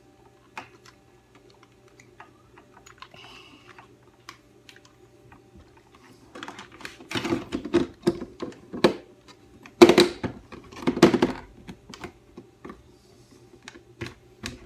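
Plastic clicks, knocks and rubbing from handling a hard-wired smoke alarm while its wiring harness plug is pushed into the socket on its back. The clicks are sparse at first and become a denser, louder clatter in the second half, over a faint steady low hum.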